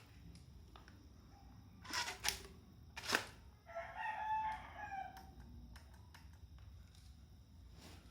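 Three sharp mechanical clacks from a dummy Owen submachine gun's action being worked by hand, the last the loudest, followed a moment later by a drawn-out animal call lasting about a second and a half.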